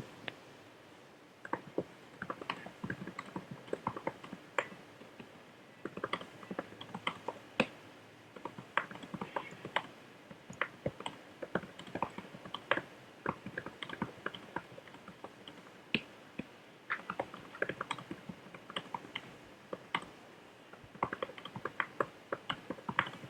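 Computer keyboard being typed on in quick, uneven bursts of keystrokes with short pauses between runs.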